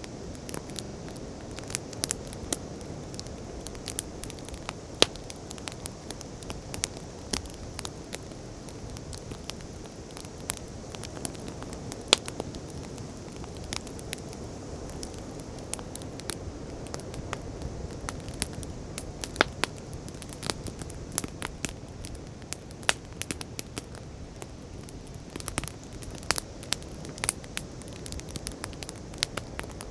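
Wood bonfire crackling, with frequent irregular sharp pops and snaps over a steady low rush.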